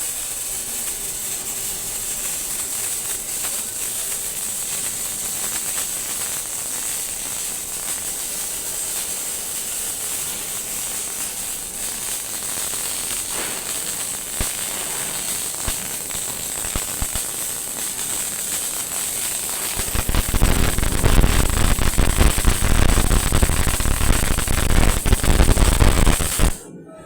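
CO2 (MIG) welding arc, crackling and hissing steadily. About twenty seconds in it gets louder and heavier, then stops abruptly near the end as the arc is broken.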